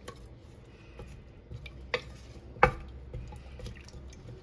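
A utensil knocking against a cooking pot of soup: a few sharp clinks, the loudest about two and a half seconds in.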